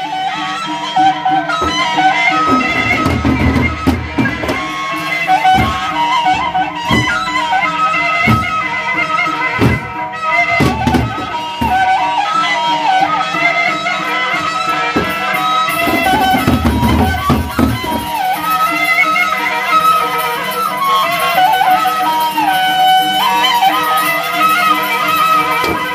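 Gendang beleq ensemble playing: large double-headed barrel drums beaten in a busy, irregular rhythm under a held, reedy melody that steps between notes.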